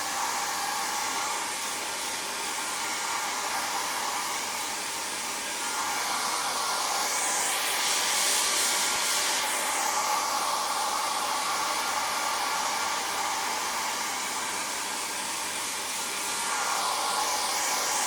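Handheld hair dryer running continuously: a steady rush of air over a motor whine, the airy hiss growing louder twice.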